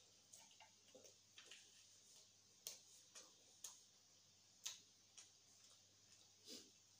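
Faint, close-miked eating sounds: irregular soft clicks and smacks of a mouth chewing grilled pork barbecue taken off a skewer, about one or two a second.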